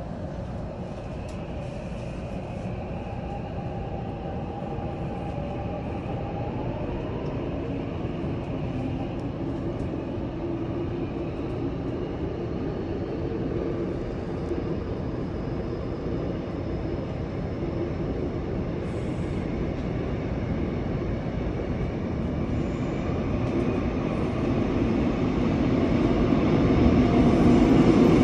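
Subway train running, heard from inside the carriage: a steady rumble of wheels on rail with a faint whine that shifts in pitch, growing louder over the last several seconds.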